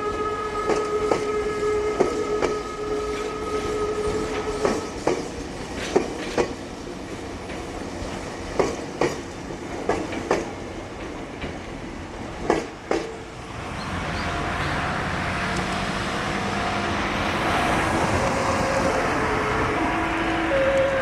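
Meitetsu train's music horn holds its last note and stops about four seconds in, leaving train wheels clicking irregularly over rail joints. About two-thirds through, a steady rumble of a train on the bridge rises, and near the end the music horn's stepped melody starts up again.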